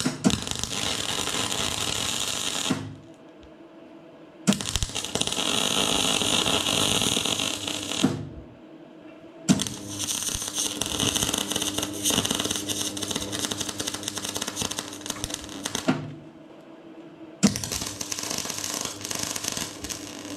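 MIG welding arc on steel plate crackling steadily in four runs of a few seconds each, each starting with a sharp crack as the arc strikes, with short pauses between the runs.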